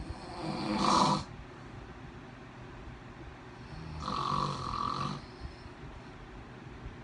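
A man snoring: two snores about three seconds apart, the first building up and cutting off sharply, the second longer and more even.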